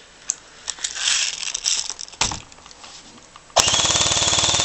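Scattered clicks and rustles, then about three and a half seconds in an airsoft G36C electric gun running on a 9.6 V NiCd battery fires a full-auto burst: a loud, rapid, even rattle of the gearbox cycling, over a steady motor whine.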